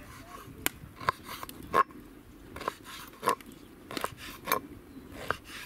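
Large knife cutting mutton fat into cubes on a wooden cutting board: about eight sharp knocks of the blade striking the board, at uneven intervals.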